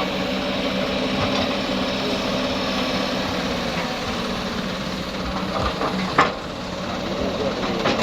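Heavy machine's diesel engine running steadily, its hum easing about five seconds in, with a single sharp knock about six seconds in.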